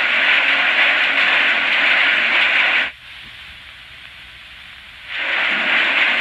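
Steady loud hiss of an old optical film soundtrack. About three seconds in it cuts abruptly to a much fainter hiss for about two seconds, then returns just as suddenly.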